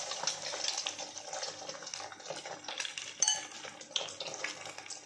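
Hot oil sizzling and crackling around egg-coated potato fritters frying in a wok, with a few sharper clicks.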